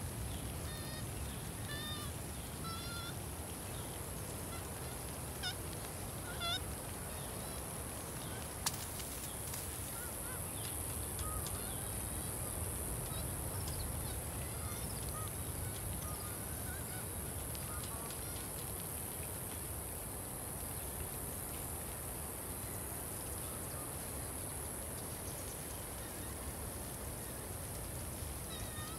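Poultry calling: a run of short squawking calls in the first seven seconds, then fainter scattered chirps, over a steady high-pitched hiss. One sharp click comes about nine seconds in.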